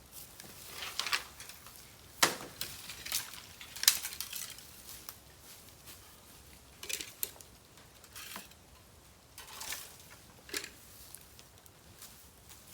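Dry bamboo cracking and crackling in irregular sharp snaps, the loudest ones in the first four seconds, then sparser.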